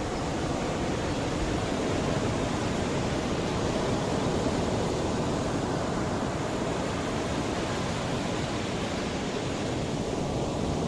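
Mediterranean sea waves washing on the shore: a steady rushing surf with gentle swells in loudness.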